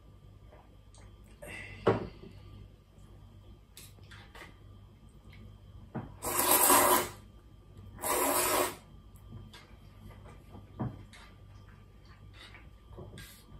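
Two long, loud slurps of udon noodles, one about six seconds in and a shorter one about two seconds later. Earlier a sharp knock, like a glass set down on the wooden table, and later a smaller click and faint light ticks of chopsticks and bowl.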